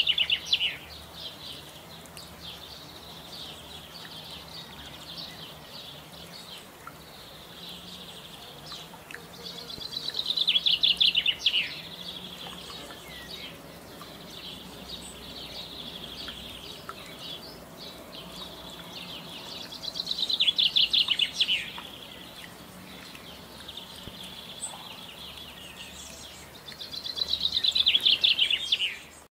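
A songbird singing a rapid trilled phrase of about two seconds that falls in pitch at the end, four times at intervals of about eight to ten seconds. Fainter bird twittering runs on between the phrases.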